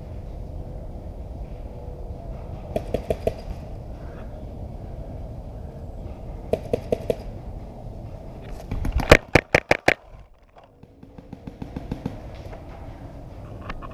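Paintball markers firing in short rapid strings: about four quick shots a few seconds in, another four or so near halfway, then a louder string of about eight shots, followed by fainter scattered shots. A steady low rumble runs underneath until the loud string.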